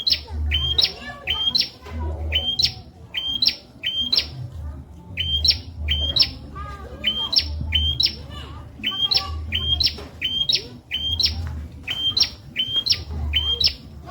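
Prenjak (prinia) calling a fast, insistent series of short, sharp rising chirps, about two a second, with a low rumble coming and going underneath.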